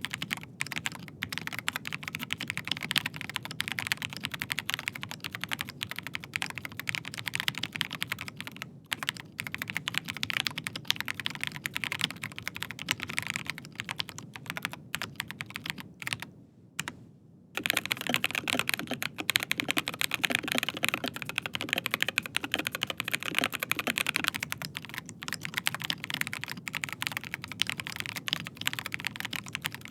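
Fast, continuous typing on a Rapture FoxtRot mechanical keyboard with linear Gateron G Pro 3.0 Red switches. About 17 seconds in the typing stops for about a second and resumes on a Rapture Charlie keyboard with the same switches, which sounds deeper and slightly louder.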